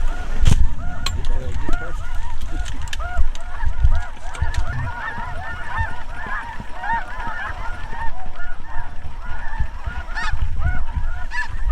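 A flock of geese honking, many short calls overlapping in a steady chorus.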